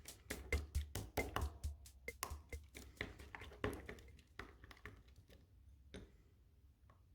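Background music fading out, with short taps and clicks that thin out and grow fainter, leaving only a few faint clicks near the end.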